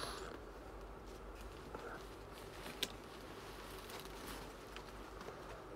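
Faint rustling and a few light clicks from folded denim jeans being handled and unfolded, the sharpest click about three seconds in, over a low steady hum.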